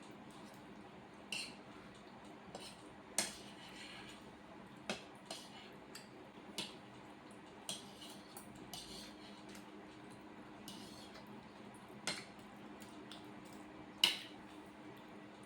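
Cutlery clicking and tapping against plates while eating macaroni: about a dozen short, irregular clicks, the loudest one near the end.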